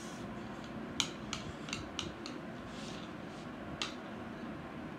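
Chopsticks clicking together and tapping against plates as noodles are picked up: a handful of short, sharp clicks, most of them bunched in the first half, one more near the end.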